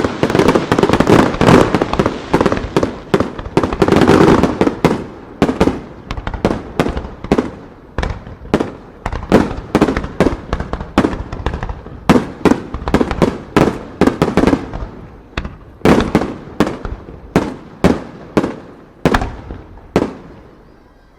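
Fireworks display in a rapid-fire barrage: a dense wash of shell bursts at first, then a fast run of separate sharp bangs, about two or three a second, that thins out and stops near the end.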